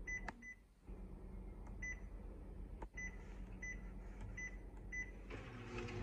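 Kyocera 4002i copier's touch panel giving short, identical key beeps, about seven of them, as menu buttons are pressed over the machine's low steady hum. About five seconds in, the copier's motors start and a louder mechanical running noise sets in.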